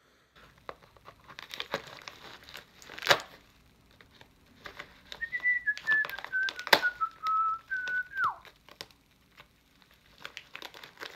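Packaging being opened by hand, plastic crinkling and tearing with two sharp clicks. Partway through, a person whistles a short, wavering run of notes for about three seconds, ending in a downward slide.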